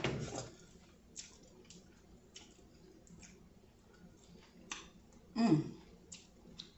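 Close-miked eating sounds of seafood being chewed: scattered soft clicks and wet smacks, with a brief voiced sound from the eater about five and a half seconds in.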